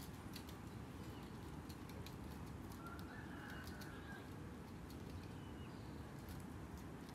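Faint bird calls, with one short call about three seconds in, over a steady low rumble and scattered light clicks.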